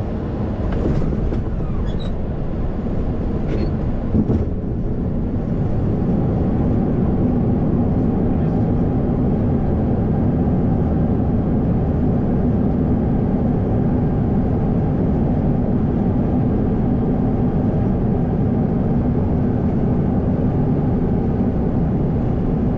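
Boeing 737-700 touching down and rolling out on the runway, heard from the flight deck. There are a few knocks in the first seconds, the sharpest about four seconds in. From about six seconds in a louder, steady rumble takes over.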